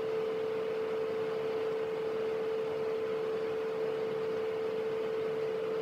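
A single steady pure tone, a little under 500 Hz, held without change over a hiss of noise.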